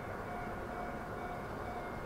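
Inside the cabin of a JR East 209 series 2100-subseries electric train standing at a station with its doors open: the onboard equipment hums and whines steadily, with a faint tone that comes and goes.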